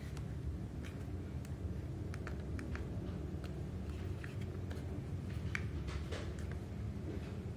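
Faint clicks and rubbing from hands working a silicone sleeve over a plastic TV remote control, scattered irregularly over a steady low hum.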